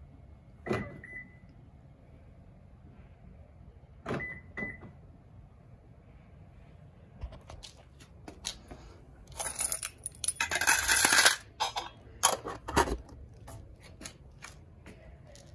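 Short clicks, each with a brief high beep, once near the start and twice about four seconds in, as the car door handle's lock sensor is touched. Around ten seconds in, about two seconds of loud metallic rattling and scraping as the steel can holding the smart key is handled, and a shorter rattle about a second later.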